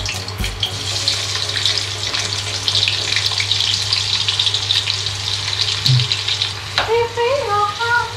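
Sliced onions sizzling and crackling in hot oil in a pan, starting about a second in as they go into the oil. The sizzle dies down near the end, when short high-pitched warbling notes begin.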